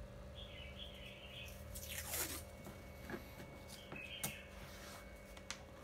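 Masking tape pulled from the roll and torn off with a short rasp about two seconds in, then handled and pressed onto a plastic tool case lid with a few light clicks; faint bird chirps in the background.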